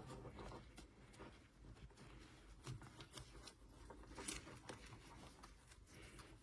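Faint rustling and small scattered clicks of a ball-jointed doll and its fabric dress being handled while an arm is worked into a sleeve, with a slightly sharper click about four seconds in.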